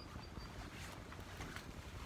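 Faint rustling of banana leaves being gathered by hand, over a low wind rumble on the microphone.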